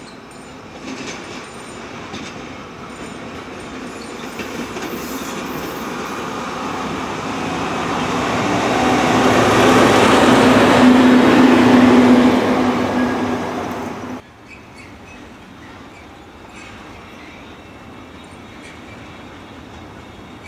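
Freight train with a locomotive approaching and passing close by, its rumble of wheels on rails and steady low engine hum growing louder to a peak. About fourteen seconds in the sound drops off abruptly, leaving a quieter, even rumble of rolling wagons.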